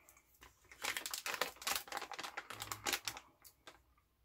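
Plastic candy wrapper crinkling as it is handled, a dense run of quick crackles for about two seconds, then a few scattered clicks.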